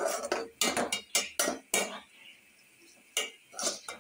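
A spoon scraping and clinking against a steel pot in quick strokes while stirring moong dal roasting in oil. The strokes pause about two seconds in and start again near the end.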